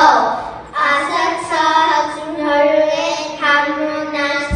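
Young girls' voices singing a Nepali song together, in held, wavering phrases of a second or so with short breaths between them.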